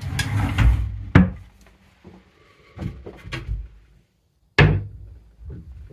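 A wooden drawer and wardrobe door being opened and shut: a sliding rumble in the first second, a sharp knock a little over a second in, light clatters around the middle, and a louder sudden knock about three-quarters of the way through.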